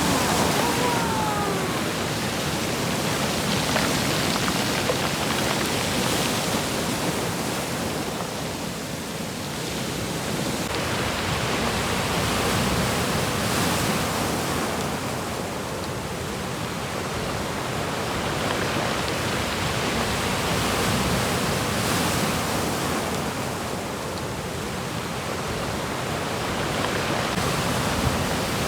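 Rough sea surf: waves breaking and rushing without pause, the roar swelling and easing every several seconds as each set comes in.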